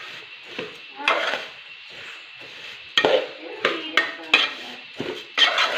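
Metal spatula scraping and rattling against an aluminium pot while stirring dry beaten rice flakes (aval) roasting in ghee, in a run of irregular strokes, busiest in the second half.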